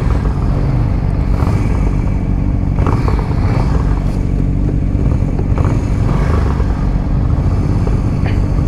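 Motorcycle engines idling steadily while stopped, an even low note that holds without revving.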